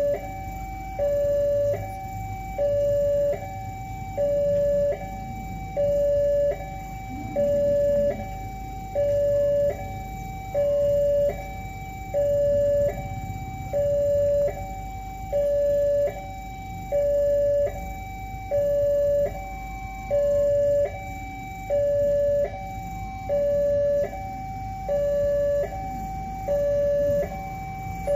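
Railway level-crossing warning alarm sounding: an electronic signal alternating between a higher tone and a louder lower tone, one cycle about every 1.5 seconds, the warning that a train is approaching the crossing.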